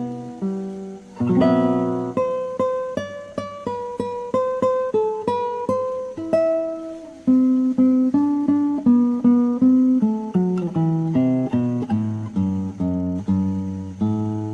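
Background music: acoustic guitar playing a melody of plucked notes over a bass line.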